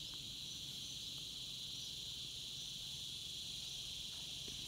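Steady, high-pitched chorus of insects, an unbroken shrill hum that neither rises nor falls.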